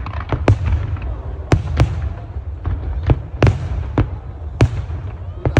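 Aerial fireworks shells bursting: an irregular series of sharp bangs, one or two a second, over a continuous low rumble.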